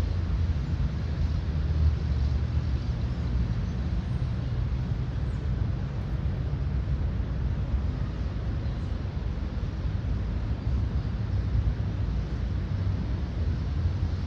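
Outdoor city-park ambience: a steady low rumble with a gently fluctuating level and no distinct events.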